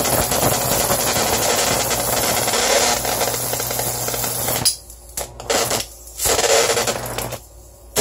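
High-voltage arc drawn from a flyback transformer driven by a ZVS driver at about 30 volts: a loud, rapid crackling buzz. It breaks off and restrikes about three times in the last few seconds.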